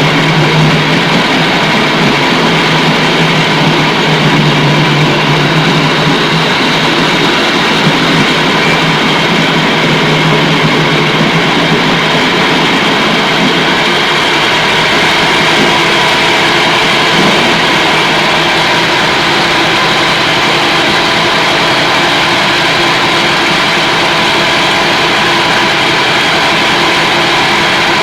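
Meatball meat-grinding machine running steadily, a loud, even mechanical drone with a lower hum that weakens about halfway through.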